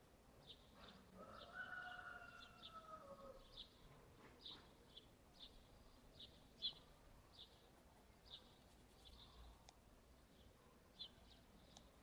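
Faint bird chirping: short high chirps repeating roughly twice a second, with one longer call that slowly falls in pitch about one to three seconds in.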